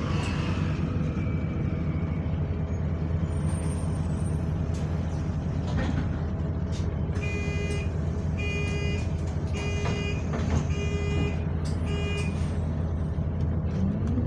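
Bus diesel engine idling at a stop, heard from inside the passenger saloon, with about five short electronic door warning beeps between about seven and twelve seconds in. At the very end the engine note starts to rise as the bus pulls away.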